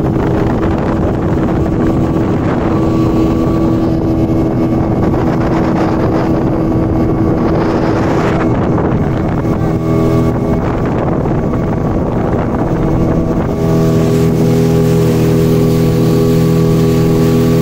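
Motorboat engine running steadily under way, with wind noise on the microphone. About three-quarters of the way through, the engine note changes and gets slightly louder.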